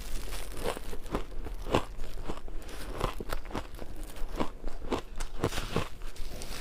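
Ice being bitten and crunched between the teeth: a run of sharp, irregular crunches, roughly two a second.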